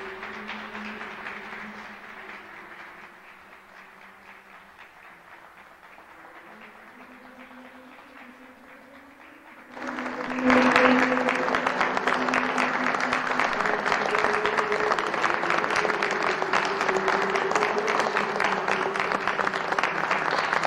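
Quiet background music with held notes for the first ten seconds, softening after about two seconds. About ten seconds in, an audience suddenly bursts into applause, and the clapping goes on over the music.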